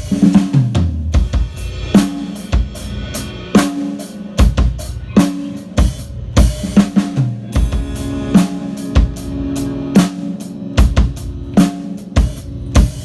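Live band playing the song's instrumental intro: a drum kit keeps a steady beat with kick, snare and cymbals over sustained pitched instrument notes.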